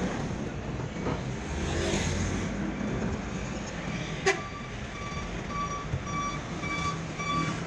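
Engine and road noise of a car driving, with a sharp knock about four seconds in. Soon after, an electronic beep starts repeating at an even pace.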